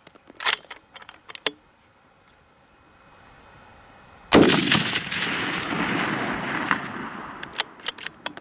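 A single 6.5 Creedmoor rifle shot about four seconds in, with a long rolling echo that fades away over about three seconds. Sharp clicks before and after the shot, from the rifle's bolt being worked.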